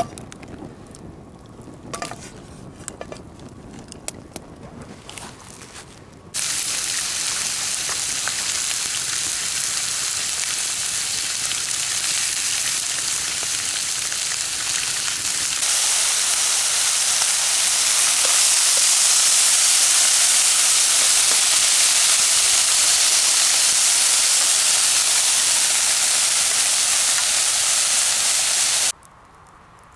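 Chicken sizzling loudly as it cooks over a campfire. The sizzle starts suddenly a few seconds in, grows louder about halfway through and cuts off abruptly near the end. Before it there are a few light clicks and knocks.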